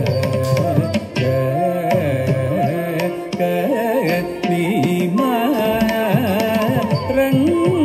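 Carnatic singing in raga Nattakurinji, the melody sliding and bending through ornaments, over steady drum strokes in Adi tala.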